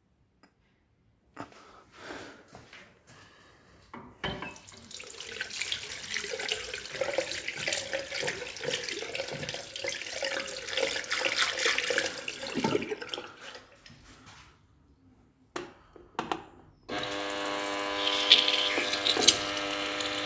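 Chrome twist-handle basin tap running into a ceramic sink, with water splashing over hands being washed, for about ten seconds before it is turned off. A few seconds later a RedRing instantaneous water heater with a swivel spout is switched on and runs with a steady hum alongside the water.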